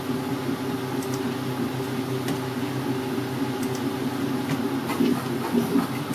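Steady low machine hum, like a computer or room fan, with a few faint short clicks from a computer mouse.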